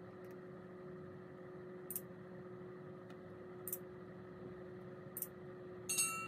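Subscribe-button animation sound effects over a steady faint hum: short mouse clicks every second and a half or so, then a brief bright chime near the end as the notification bell lights up.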